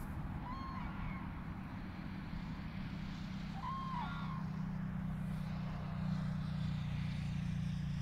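Two short trumpeting calls from common cranes, about half a second and four seconds in, over the steady drone of road traffic that swells near the end.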